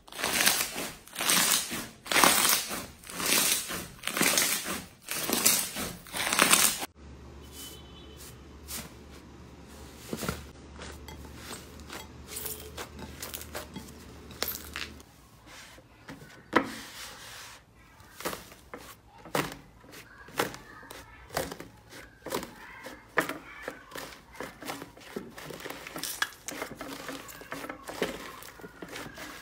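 Hands squeezing and kneading slime: for the first seven seconds a bead-filled slime gives loud wet squishes and pops about once a second, then other slimes are pressed more quietly, with scattered small clicks, pops and crackles.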